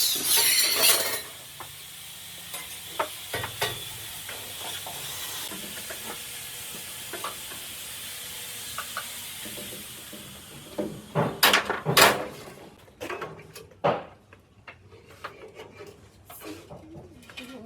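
A steady hiss with scattered light clicks, then a cluster of sharp clicks and knocks about eleven to fourteen seconds in, followed by lighter clicks.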